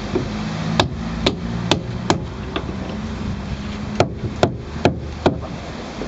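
Hammer blows during repair work on an outrigger canoe: a run of five sharp strikes at about two a second, a short pause, then four more at the same pace.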